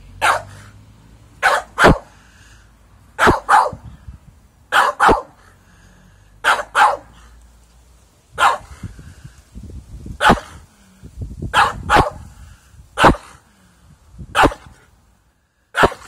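Dog barking at a bird's nest lying on the lawn, wary of the unfamiliar object: sharp barks, single or in quick pairs, every second or two.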